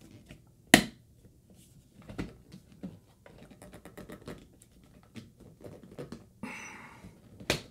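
Plastic clicks, knocks and rubbing of a ceiling-mounted Wi-Fi 6 access point being twisted against its mounting bracket: a sharp click about a second in, scattered small taps, a brief rasp near the end, then another sharp click just before the end, which is taken for the first 'pop' of the unit locking in.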